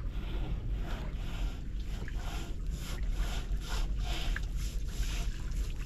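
Water sloshing and lapping against the hull of a wooden outrigger fishing boat in irregular soft swishes, over a steady low engine hum.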